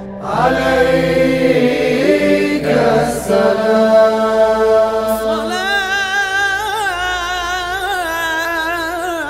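Unaccompanied Aleppine funeral chant (tajwīq al-mayyit) in Arabic: voices hold long sustained notes, and about five and a half seconds in a solo voice takes over with a wavering, richly ornamented melismatic line.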